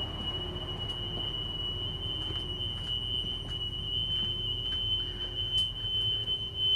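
School bus emergency exit alarm buzzer sounding one steady, unbroken high-pitched tone, the signal that an emergency exit is open.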